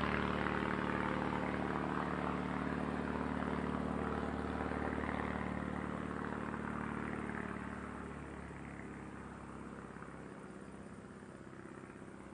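Small propeller plane's engine droning overhead, steady at first and then fading away from about two-thirds of the way in as it passes into the distance.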